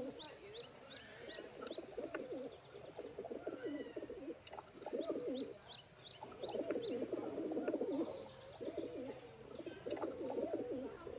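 Pigeons cooing in repeated low, throaty phrases, with small birds chirping high and quick over them.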